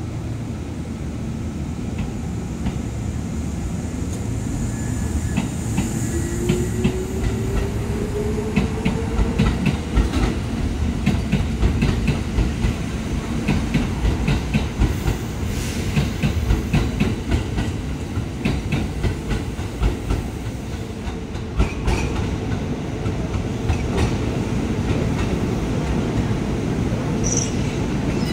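Kintetsu electric limited express train moving through the station's points, wheels clicking over rail joints and crossings over a steady low rumble. A motor whine rises in pitch about five seconds in as the train speeds up.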